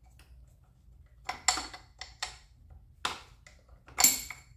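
Metal hand tools clinking and knocking together, a handful of sharp clinks, the loudest near the end, as a wrench or socket is picked out for a rusted nut.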